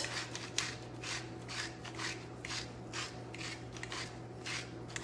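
Pampered Chef salt grinder being twisted by hand over food: a run of short gritty grinding rasps, about two a second.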